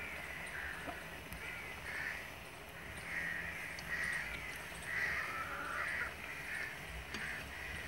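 Birds calling, a series of short caw-like calls, over the steady sizzle of pakoras deep-frying in hot oil in an iron karahi.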